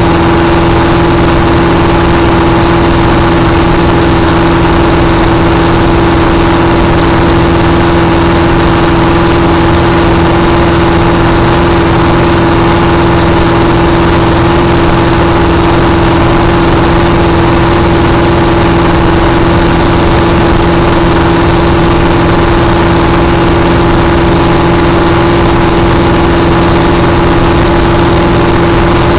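Supercharged Ford engine of a flat-bottom speedboat running under way at a steady speed, loud and unchanging, with a strong steady hum over a constant rush of noise.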